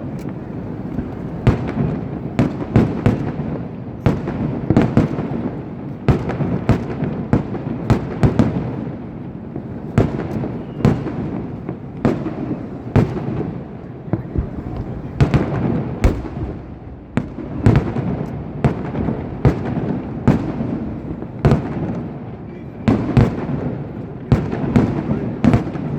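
Fireworks display: a dense, irregular barrage of loud cracking bangs, several a second, over a continuous rumble of bursts.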